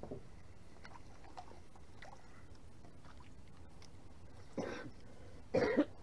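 A man clearing his throat twice near the end, the second time louder, over a quiet background with a few faint clicks.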